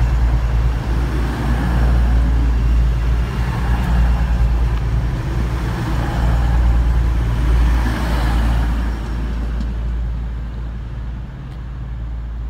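Class 222 Meridian diesel multiple unit running through a station close by: a deep diesel drone with wheels on rail and rushing air. The rush swells as the last cars pass, then fades away over the final few seconds.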